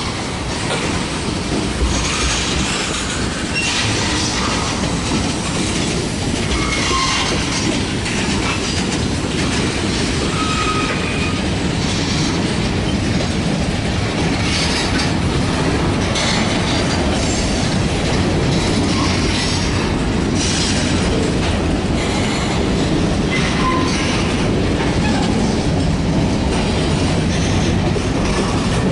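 Freight cars of a mixed manifest train (tank cars, covered hoppers, gondolas) rolling past: a steady rumble of steel wheels on rail, clacking over the rail joints, and a few brief high wheel squeals.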